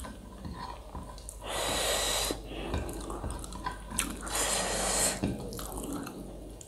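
Two long hissing breaths drawn in, about a second each, the first near the middle and the second a little later, with small mouth clicks between them, a reaction to the chili heat of a very spicy curry.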